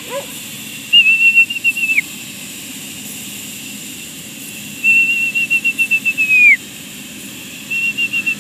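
A high, warbling whistle sounds three times, each lasting one to two seconds, with a quick pulsing flutter on a steady pitch. The longer calls drop in pitch at the end.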